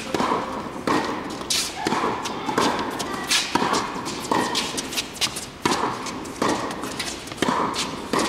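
Tennis balls struck back and forth with rackets in a quick exchange: sharp pops of ball on strings, along with ball bounces and footfalls on the hard court, about one to two hits a second.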